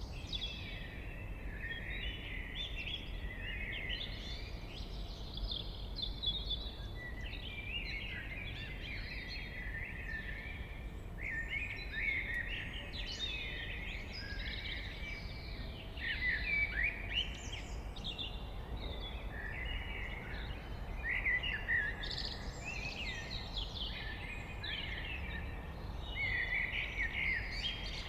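Blackbird singing, a continuous run of warbled, fluting phrases with twittering ends, over a steady low background rumble.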